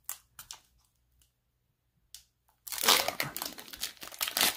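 A few light handling ticks, then about two and a half seconds in the foil wrapper of a Pokémon booster pack crinkling and crackling as it is torn open.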